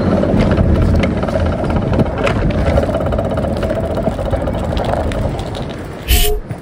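Bicycle being ridden over pavement, with a rumble and a fast, irregular ticking rattle from its kickstand, which was not folded up properly. A brief louder burst about six seconds in, after which the sound drops away.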